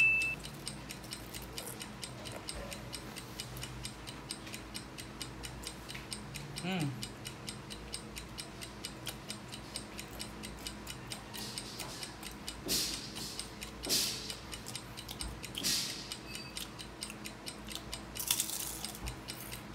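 Rapid, even ticking throughout. In the second half come a few crisp crunches as hard-fried lumpiang shanghai (pork spring rolls) are bitten and chewed.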